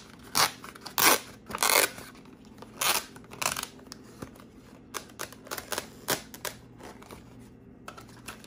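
Plastic instant-noodle packaging being opened and handled, rustling and crinkling in several short bursts through the first half, then lighter clicks and taps.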